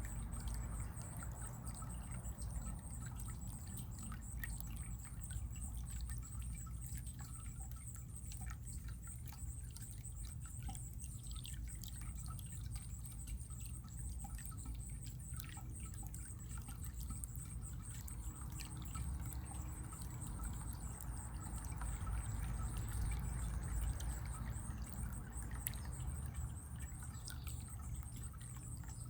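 Running water trickling steadily, with many small drips and splashes in it.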